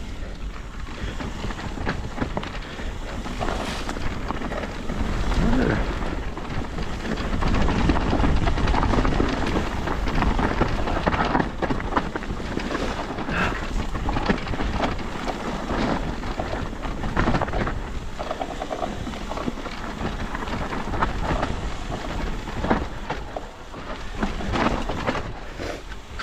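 Mountain bike riding down a dirt trail: wind buffeting the camera microphone over the tyres rolling on dirt, with frequent knocks and rattles of the bike over rough ground.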